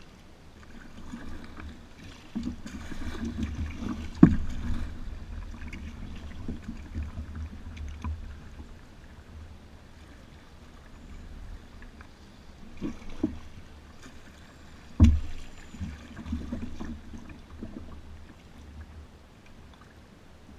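Kayak being paddled on a river: paddle strokes splashing over a steady low rumble of water, with a few sharp knocks, the loudest about four seconds in and again about fifteen seconds in.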